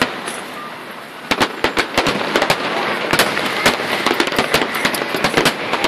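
Aerial fireworks bursting in a dense barrage: many sharp bangs over a continuous crackling hiss, sparse at first and coming thick and fast from about a second in.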